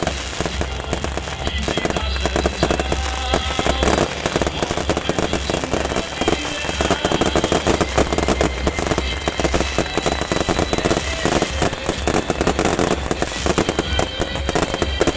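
Beehive fireworks: a dense, continuous barrage of small bottle rockets firing and bursting at once, a rapid unbroken crackle of bangs.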